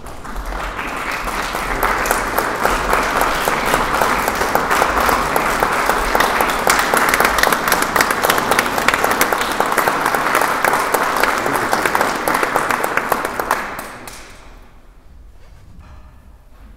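Audience applauding, a dense steady patter of many hands clapping that dies away about fourteen seconds in.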